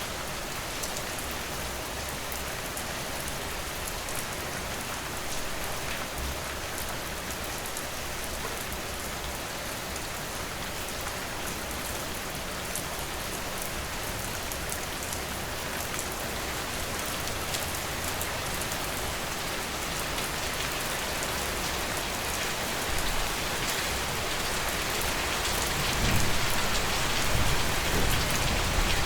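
Steady rain falling: a dense hiss with many small drop ticks, growing louder and heavier over the last few seconds.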